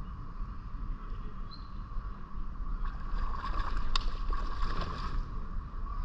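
A hooked bass being fought on a rod beside a kayak: a steady low rumble of wind and water, with a louder spell of splashing and clicks from about three to five seconds in, one sharp click near the middle of it.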